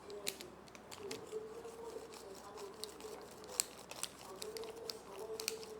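Mozzarella cheese being sliced with a small kitchen slicer: scattered light clicks and cutting sounds over a faint steady hum.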